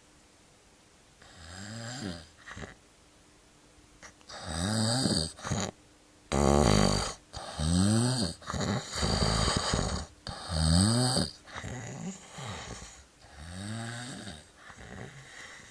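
Man snoring heavily in his sleep after a lot of alcohol: a series of loud snores, one every second or so, loudest around the middle and softer near the start and end.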